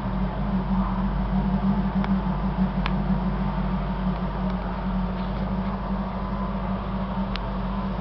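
Ford Mustang Cobra V8 idling through a Roush side exhaust with an X-pipe: a steady, pulsing rumble that holds the same pitch with no revving.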